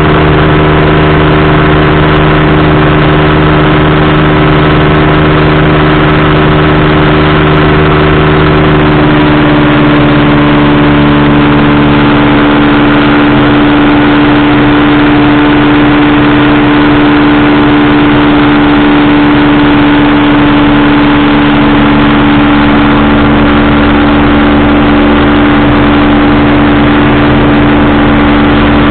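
Powered parachute's engine and propeller running steadily and loudly at flight power, the engine note shifting slightly about a third of the way in.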